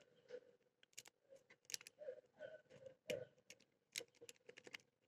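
Faint, irregular clicking and scraping of a lock pick working the pin stack of an old Titan padlock, which is not yet opening.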